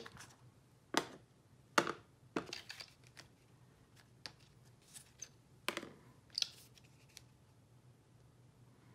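Light plastic clicks and taps as a clear rubber stamp on an acrylic block is picked up, inked on an ink pad and pressed onto card stock, the sharpest tap about two seconds in.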